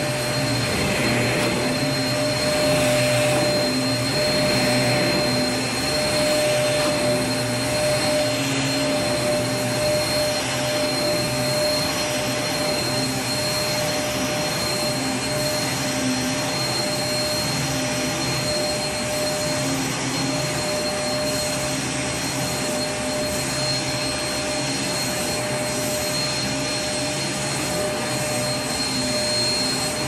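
Upright bagged vacuum cleaner running steadily: an even rush of air with a constant motor whine.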